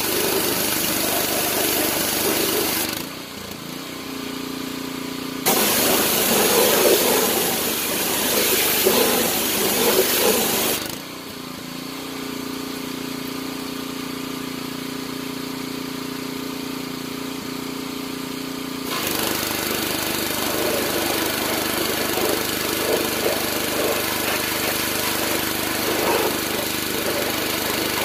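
Gas-engine pressure washer running while its wand sprays water at a car's wheel well. The hiss of the spray stops twice for several seconds when the trigger is let go, leaving only the engine's steady running note.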